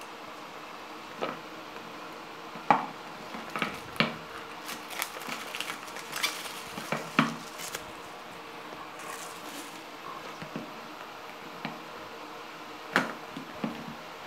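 Hands handling a cardboard smartphone retail box while unboxing it: scattered taps and knocks of the box on the table and fingers on the cardboard, with crinkly packaging rustles in the middle. The sharpest knocks come about three seconds in and again near the end.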